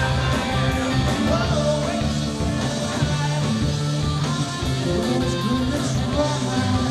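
A live rock band playing, with guitar over long held bass notes.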